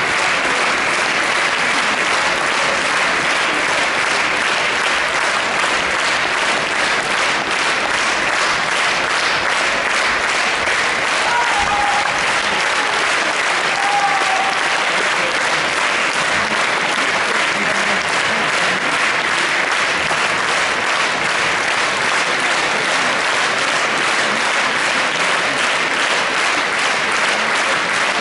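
Opera house audience applauding steadily for the cast's bows, a dense, even wash of clapping.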